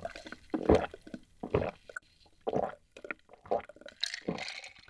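A person gulping a dark drink from a glass mug, one swallow about every second, with a breathy hiss near the end.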